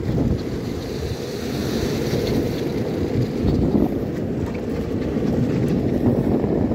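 Skateboard wheels rolling over asphalt, a steady, coarse, low rumble.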